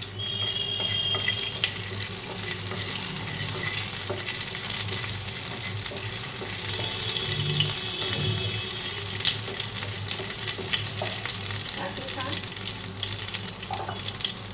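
Whole spices (green cardamom, cloves and black peppercorns) frying in hot oil in a nonstick pan, with a steady sizzle full of fine crackles; a spoon stirs them around partway through.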